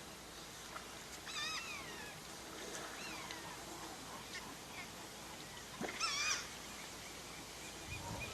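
Animal calls: a wavering, quavering cry about a second in and a louder one about six seconds in, with softer chirps between.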